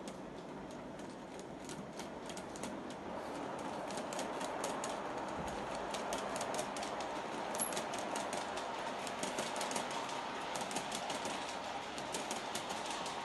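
G-scale model train running past on its track: rapid clicking of the wheels over the rail joints over a steady electric motor hum, getting louder about three seconds in.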